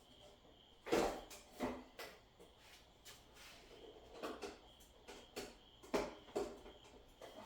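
A few sharp knocks and clunks of objects being handled, two pairs of them about a second in and about six seconds in, with lighter scuffing and rustling between.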